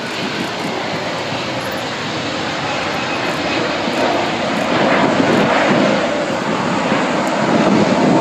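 Jet airliner taking off: a steady engine roar that grows louder as it rolls and lifts off, loudest from about halfway through.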